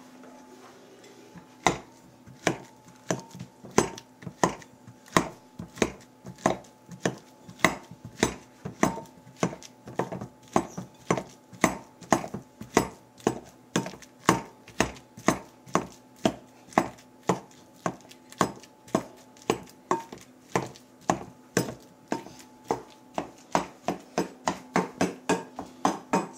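Potato masher mashing bananas in a mixing bowl, knocking against the bowl about twice a second in a steady rhythm that starts about a second and a half in.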